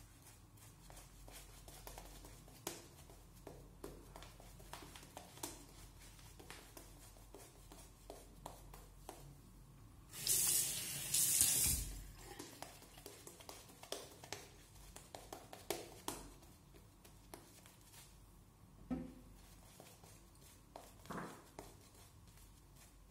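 Shaving brush swishing lather over the face in short strokes, with a tap running for about two seconds about ten seconds in.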